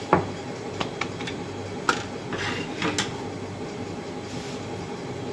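Kitchen utensil sounds while rotis are made on a tawa: a handful of sharp clicks and knocks from the rolling pin and tawa as a rolled roti is handled and laid down, over a steady low hum.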